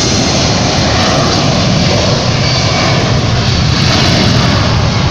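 Boeing 767-300's twin jet engines at takeoff thrust during the takeoff roll: a loud, steady, deep rumble, buffeted by wind on the microphone.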